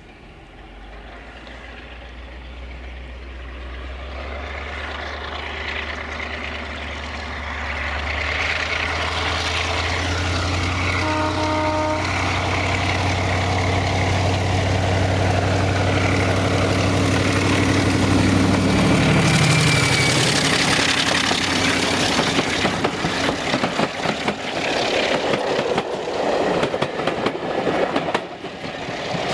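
Class 35 Hymek diesel-hydraulic locomotive working hard under full power as it approaches, its Maybach V16 engine note growing steadily louder, with a brief horn note about eleven seconds in. The engine note drops in pitch as the locomotive passes, about twenty seconds in, and then the train's coaches rattle and clatter over the rail joints.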